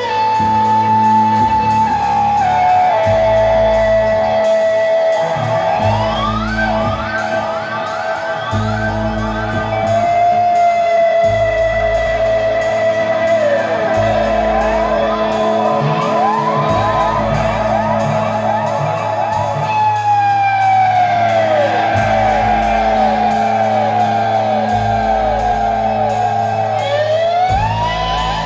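Live psychedelic rock music: sustained electric guitar lines with many sliding, swooping notes over a repeating bass pulse and a steady beat.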